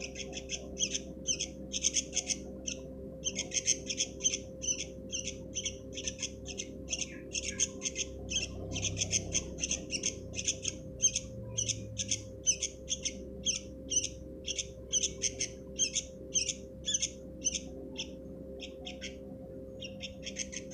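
Sooty-headed bulbul chicks calling: short, high calls repeated about three times a second, with a brief pause near the end. A steady low hum runs beneath.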